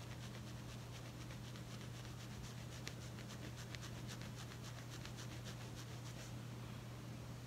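Fine-tooth comb scratching across a dandruff-flaked scalp of short hair: faint, quick scraping strokes that stop near the end.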